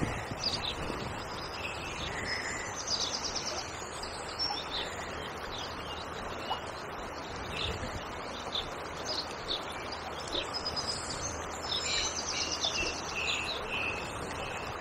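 Fast river water rushing steadily around a wading angler, with small birds singing over it: scattered high chirps and a couple of quick trills, about three seconds in and again near the end.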